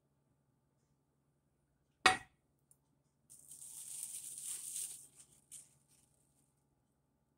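A ceramic bowl set down on a metal stovetop griddle with one sharp clink about two seconds in. A soft rustling hiss follows for a couple of seconds.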